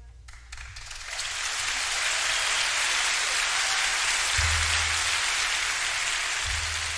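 A steady, rain-like hiss that builds up over the first second, after a few faint ticks. A low hum sits underneath it and grows louder twice.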